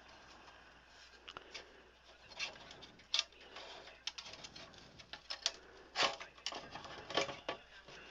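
Handling noise from a tube radio chassis being worked back into its plastic cabinet: irregular light clicks, knocks and rustling of metal and wires against the case. The loudest knocks come about three, six and seven seconds in.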